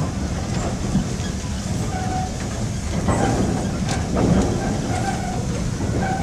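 Cab of an antique steam locomotive under way: a steady low rumble and rattle from the running engine and train, with a few louder metal clanks midway.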